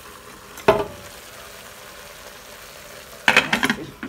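Aluminium pressure-cooker lid set onto the pot with a single metal clank about a second in, over a steady sizzle of beef ribs cooking in the pot with no water. Near the end comes a quick run of metal clicks and clanks as the lid is handled by its handle.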